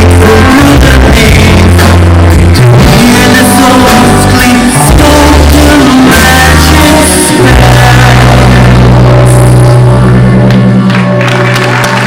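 Rock band playing live with singing, recorded loud and rough through a digital camera's built-in microphone.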